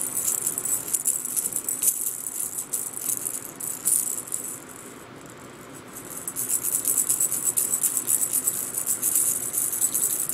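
Cat toy rattling as it is shaken in quick, continuous bursts, with a quieter lull about halfway through.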